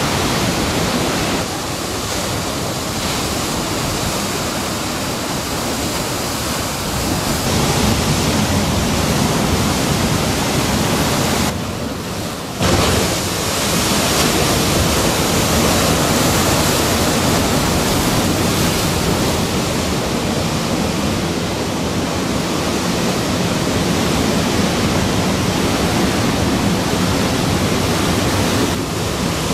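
Ocean surf breaking, a steady wash of noise with no distinct rhythm. The level jumps abruptly at a few points and drops briefly about twelve seconds in, where the footage is cut.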